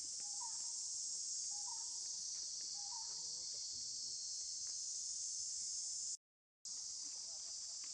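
Insects shrilling in a steady, high-pitched, even chorus, with faint short chirps about once a second in the first three seconds. The sound cuts out completely for about half a second some six seconds in.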